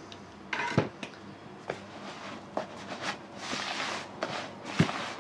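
Hands mixing and rubbing damp fishing groundbait in a plastic bucket, a gritty rustling that comes in waves over the last couple of seconds, with a short sharp burst about a second in.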